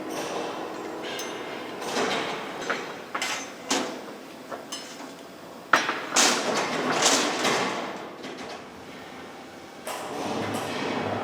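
Metal clanking and knocking in a workshop: a string of irregular sharp hits and clinks with scraping and sliding noise between them, loudest and busiest about six to seven seconds in.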